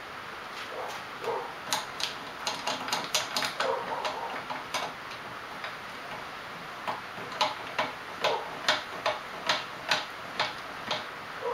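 Repeated clicks from the hand-turned belt-tensioning handle of a homemade belt grinder, a treadmill's manual speed-control handle that winds a cable to pivot the motor and tighten or slacken the belt. The clicks come in irregular runs of about two a second, with a pause of a couple of seconds near the middle.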